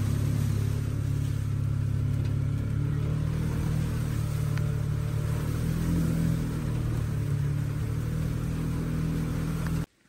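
A vehicle's engine running steadily as it drives along a wet dirt track, heard from on board. The sound cuts off suddenly near the end.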